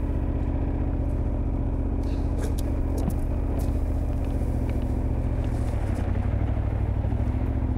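KTM 1290 Super Adventure's V-twin engine running at low, steady revs while riding slowly on a dirt forest track; the engine note shifts slightly about six seconds in.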